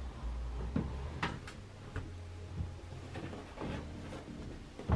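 A series of light knocks and bumps as a white shelf unit is handled and set in place, the sharpest knock near the end.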